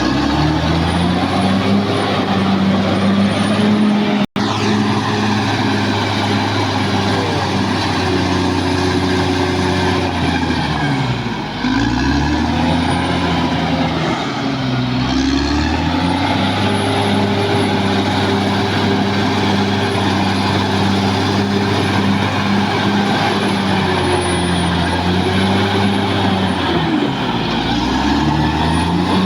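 Caterpillar D6R XL bulldozer's diesel engine working under load. Its revs sag and recover a few times as it lugs, and the sound cuts out very briefly about four seconds in.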